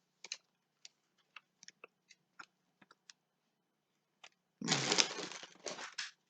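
Milk fudge candy wrapper crinkling as the candy is unwrapped: scattered small crackles, then a louder crinkling stretch of about a second and a half near the end.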